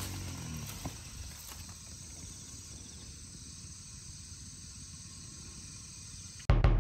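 Steady outdoor background of insects calling. Near the end a loud low sound cuts in suddenly as music starts.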